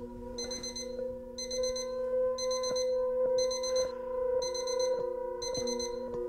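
Digital alarm clock beeping: a high-pitched electronic beep of about half a second, repeating once a second, over a steady low tone.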